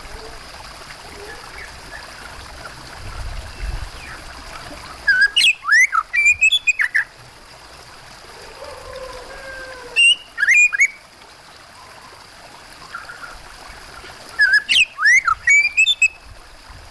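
Oriental magpie-robin (kacer) singing three bursts of loud, quick whistled phrases with sharp rising and falling notes. Running water sounds steadily underneath.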